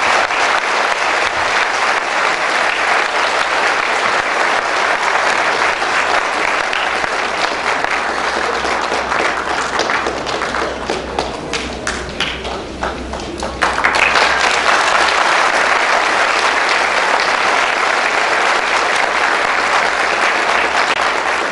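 Audience applauding steadily in a large room; a little past the middle it thins to scattered separate claps, then swells back to full applause.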